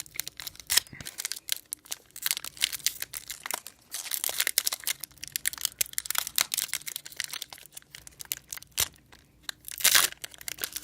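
Plastic trading-card pack wrappers crinkling and tearing as they are handled, with irregular crackles throughout.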